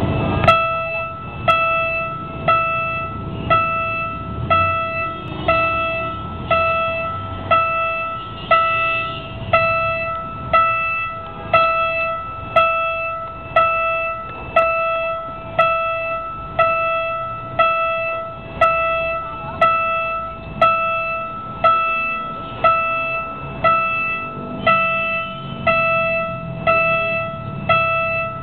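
Railroad crossing warning bell ringing, one clear strike about every second, each fading before the next: the signal that a train is approaching the crossing.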